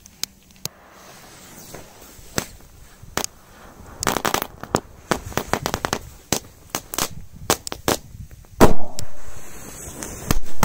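A few clicks of a lighter at the fuse, then a crackle-and-burst firecracker going off: a run of sharp crackling pops from about four seconds in, followed by one loud bang with a ringing tail about eight and a half seconds in. More loud pops come at the very end.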